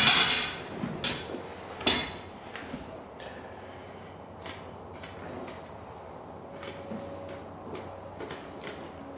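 Scissors snipping through the uncut loops along the cut edge of a Berber carpet, a string of short sharp snips at about two or three a second through the second half. Two louder clacks come in the first two seconds.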